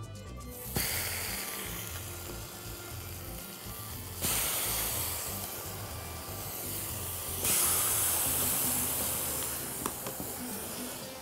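Marinated rib-eye steaks sizzling on a hot ridged grill pan. The sizzle starts about a second in and jumps louder twice more, at about four and seven and a half seconds, as each new steak is laid on, with a light click near the end.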